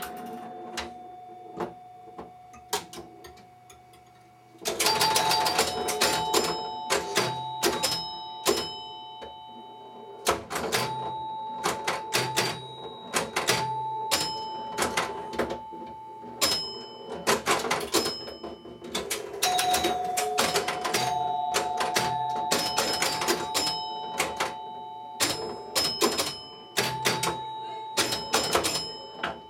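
1972 Bally Little Joe electromechanical pinball machine in play: fast, dense clicking and clacking of its relays and scoring units. Retrofitted door chimes and a bell ring tones that hang on for a second or two. It is quieter at first and gets louder and busier about four and a half seconds in.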